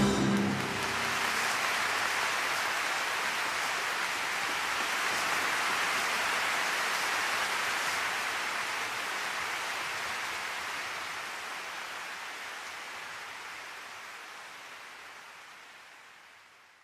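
A steady rushing, rain-like hiss with no tune, taking over as the music ends and fading slowly away to silence.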